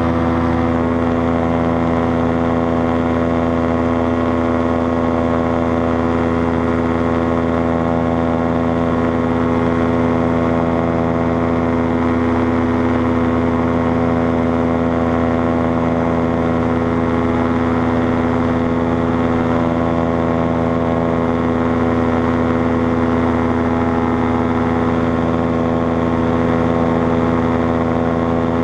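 Paramotor trike's engine and propeller running at a steady, unchanging speed in cruising flight, loud and close.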